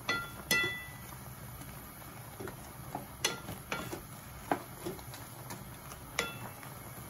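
A wooden spatula stirring shrimp in a simmering sauce, knocking against the frying pan several times; the sharpest knocks leave the pan ringing briefly. A low steady hum runs underneath.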